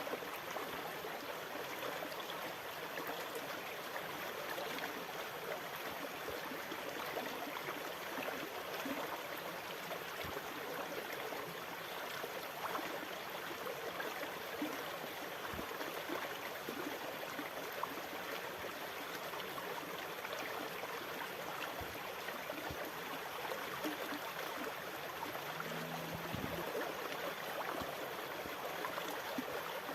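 Steady rush of sea water, an even wash with no separate breaking waves, with a few faint low knocks and a brief low hum near the end.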